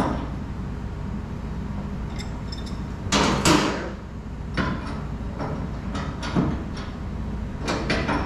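Metal faucet parts and tools knocking and scraping against the sink as the faucet is fitted and adjusted. There are scattered clanks, the loudest a pair about three seconds in, over a steady low hum.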